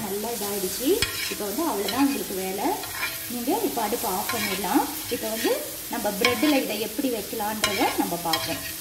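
Slotted steel spatula scraping and stirring scrambled egg on a hot iron dosa tawa, the egg sizzling throughout. The scrapes squeal, rising and falling in pitch, and the spatula taps the tawa sharply every second or so.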